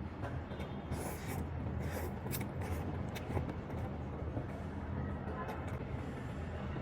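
Eating noodles in beef soup: a few short wet slurps and chewing noises over a steady low hum.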